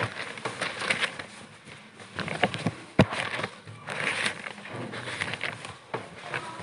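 Pages of a Bible being turned: irregular paper rustling with small clicks, and one sharp tap about three seconds in.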